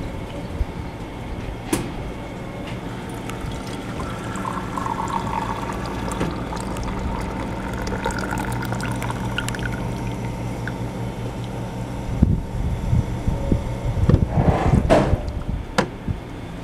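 Hoshizaki tea server pouring a stream of green tea into a ceramic mug over a steady machine hum, the pour rising in pitch as the mug fills. From about twelve seconds in come knocks and clatter as the mug is handled on the drip grate.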